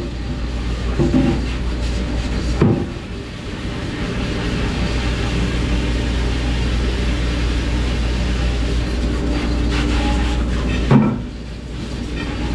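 Commercial dishwashing machine running with a steady low hum and a rushing noise, with a few knocks. It cuts off about eleven seconds in with a knock.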